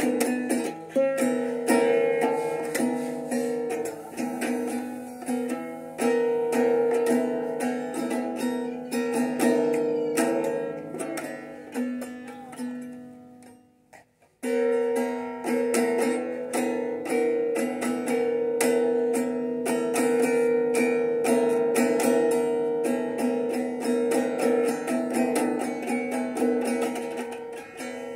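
Music played on plucked strings, guitar-like, with quick picked notes. It fades away and stops about halfway through, then starts again suddenly at full volume.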